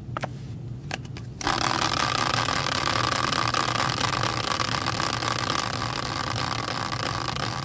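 A caster wheel used as a prize wheel, spinning freely on its bearing. After a few light clicks it sets off with a sudden steady rattling whir about a second and a half in, and the whir eases slightly as the wheel slows.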